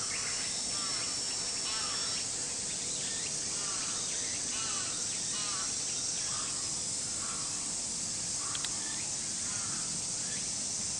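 Crows cawing repeatedly in short calls, roughly one a second, over a steady high-pitched insect drone. There is one sharp click late on.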